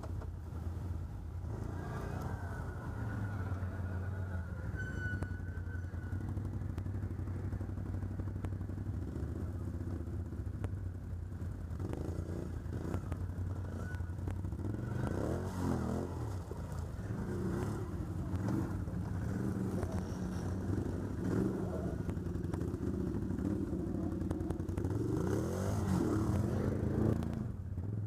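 ATV engine running, revving up and down a couple of times, most strongly near the end, with some clatter of the machine over rough ground.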